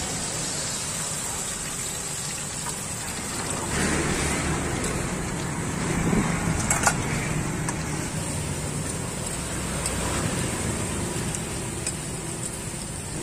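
Corn fritters deep-frying in a pot of hot oil: a steady sizzle, growing a little louder about four seconds in, with a couple of sharp clicks near the middle. Street traffic hums underneath.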